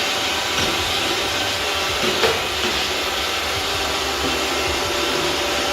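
Roomba 645 robot vacuum running, its suction making a steady, loud whooshing whir.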